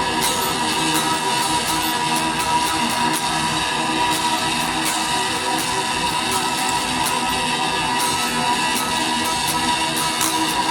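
Electric guitar played through effects pedals as a demo, a dense, steady wash of sustained tone.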